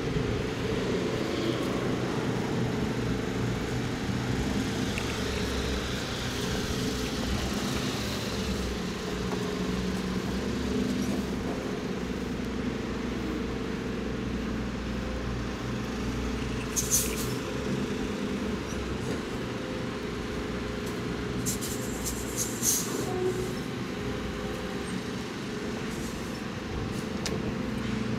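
Diesel semi-truck engine running steadily in a trailer yard. A few brief, sharp high-pitched sounds come about 17 and 22 seconds in.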